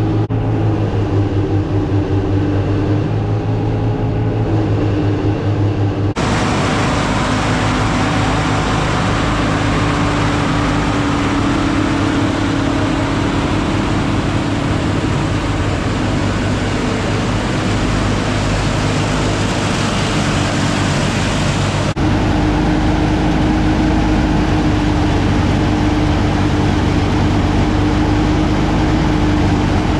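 A tractor engine running steadily under load, driving a silage blower, with the broad rushing noise of the machinery. The sound changes abruptly about six seconds in and again about twenty-two seconds in, between separate clips.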